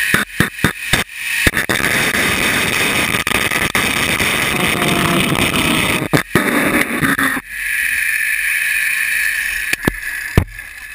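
Zipline trolley rolling fast along the steel cable: a steady whirring hiss mixed with wind rushing over the microphone, with crackling knocks in the first second or so. Near the end it fades as the ride slows, and a few sharp knocks come as the trolley reaches the landing.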